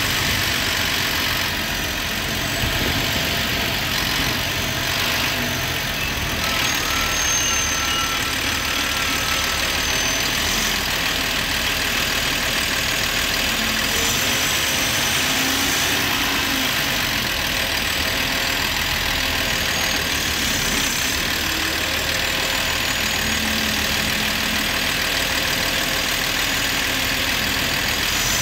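Diesel engine of a NovaBus LFSA articulated city bus, a Cummins L9, running steadily at a constant level.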